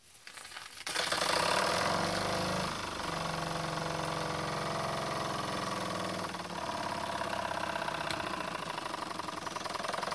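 Jensen No. 5 live steam engine coming up to speed about a second in, then running fast and steady while belt-driving a #15 generator, with a couple of slight shifts in pitch.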